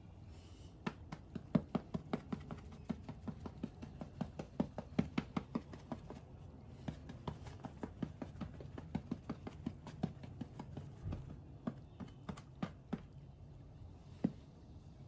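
A run of irregular light clicks and taps, several a second, stopping about thirteen seconds in, with one louder tap near the end.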